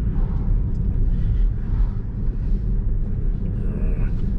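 Steady low rumble of road and tyre noise inside a moving Tesla's cabin, with no engine note.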